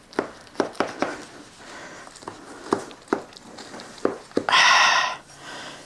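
Kitchen dishes and utensils knocking and clinking in a string of separate sharp taps while baked cucumbers are served out of the baking dish, with a harsher scraping rasp lasting under a second about four and a half seconds in.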